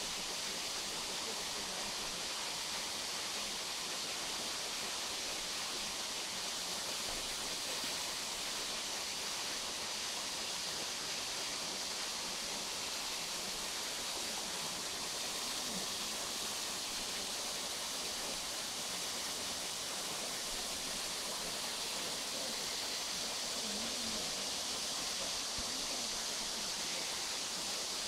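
Tall, thin waterfall spilling down a mossy rock face, a steady hiss of falling water that holds even throughout.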